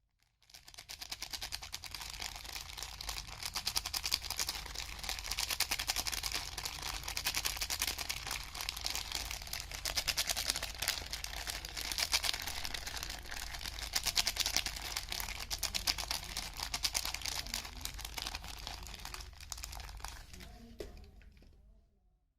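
Packaging around a bar of soap being handled and unwrapped: continuous fine crinkling and rustling with a low hum underneath, dying away near the end.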